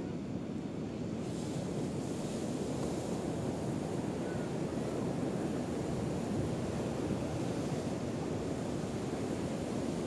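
Ocean surf breaking and washing up the beach, a steady rushing; its hiss brightens about a second in.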